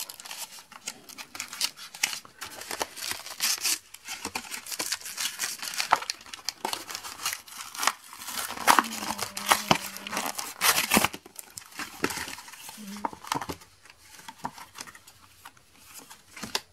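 Cardboard-and-plastic blister packaging of a Pokémon trading-card three-pack being torn and peeled open by hand: irregular crinkling, crackling and ripping.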